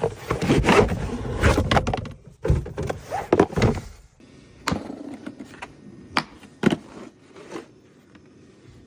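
A new refrigerant manifold gauge set being unpacked: packaging rustles and the case and fittings knock and clatter for about four seconds, then a few separate clicks and knocks.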